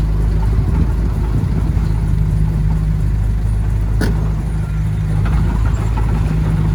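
Heavy-equipment diesel engine running steadily under load, with a single sharp click about four seconds in.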